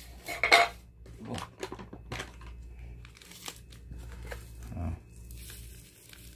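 Plastic seasoning sachet (Masako) crinkling and tearing in the hands in a string of short, irregular rustles as it is opened wider. Near the end comes a soft hiss as the powder is poured out into the bowl.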